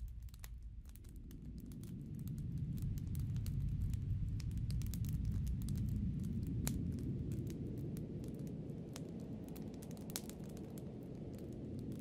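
Low wind noise rising in a gust about a second in, strongest midway and easing slightly near the end, with scattered sharp crackles over it.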